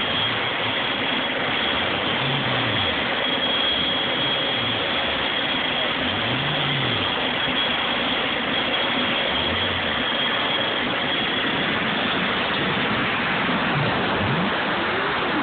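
Twin P-120 model jet turbines of a scale SR-71 running at idle: a steady high whine over a loud, even rush of noise, with a few rising tones near the end.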